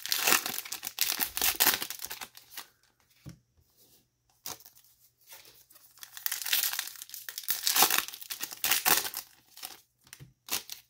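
Foil wrappers of Bowman Chrome baseball card packs being torn open and crinkled by hand: two spells of crackling tearing with a lull of about two seconds between them.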